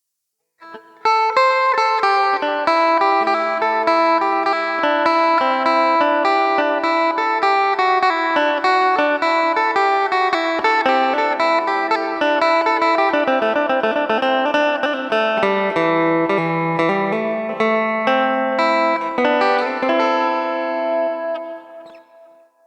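Phin, the Isan lute, played through a contact pickup: a fast run of plucked notes over a steady drone note. It starts about a second in and dies away near the end.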